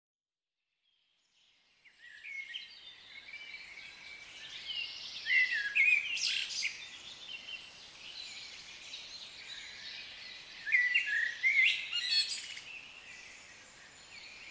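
Birds singing, a run of short chirps and trills that fades in about a second and a half in, with louder phrases about halfway through and again near the end.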